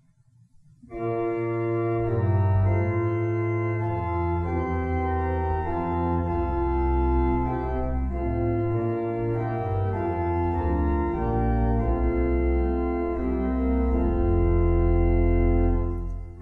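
Church organ playing the introduction to a hymn in sustained chords over a deep pedal bass, starting about a second in and pausing briefly near the end before the singing begins.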